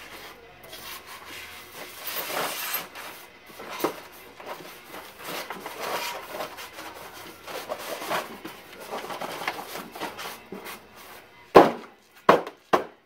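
Rummaging and handling of gear: scraping, rubbing and light knocks of things being moved and set down, then a quick run of four sharp, loud knocks near the end.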